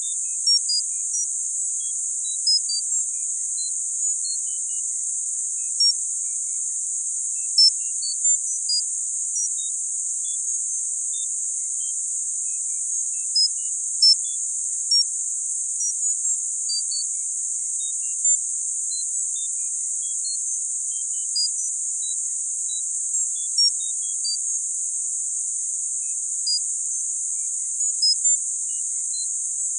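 Tinnitus-masking sound therapy audio: a steady, high-pitched hiss of filtered noise, with short high pings at varying pitches scattered irregularly over it, roughly one or two a second.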